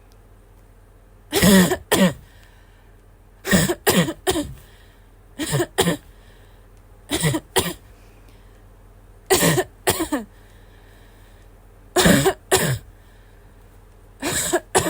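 A person's wheezy, barking cough, in short bouts of two or three coughs about every two seconds, seven bouts in all.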